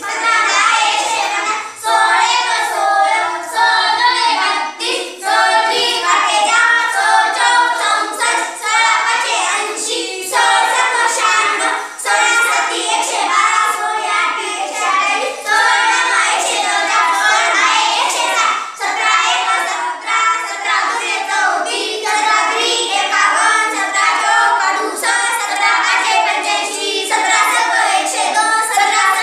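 A group of children chanting multiplication tables aloud in unison, in a rhythmic sing-song recitation.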